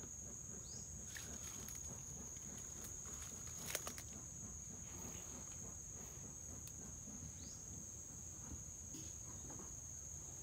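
Steady high-pitched chorus of crickets, unbroken throughout. A brief cluster of sharp knocks comes about four seconds in.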